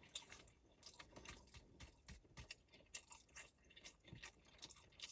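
Faint, close-up chewing: a person eating with soft, irregular mouth clicks and smacks, several a second.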